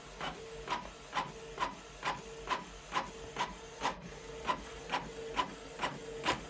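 Canon PIXMA TS3160 inkjet printer printing a page: the print-head carriage shuttles back and forth with a regular clack about twice a second, and a short steady hum between the clacks.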